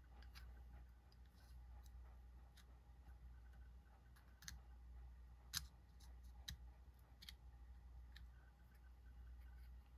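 Faint, scattered light clicks and taps of small knife parts and a small tool being handled while a Reconnaissance Adzin flipper knife is reassembled, with one sharper click a little past halfway.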